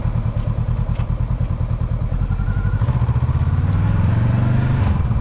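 A Honda CB500X's 471 cc parallel-twin engine runs as the motorcycle rides along, then grows louder and rises slightly in pitch about halfway through as it picks up speed.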